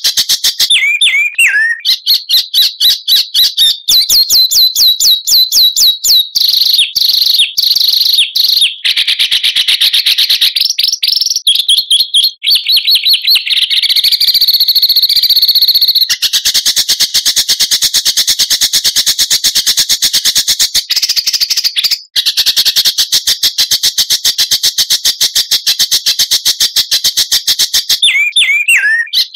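Songbird masteran recording of rapid-fire song: fast, tightly packed repeated high chirps and trills, with a few slurred falling whistles near the start and end and a harsher, buzzier stretch in the middle.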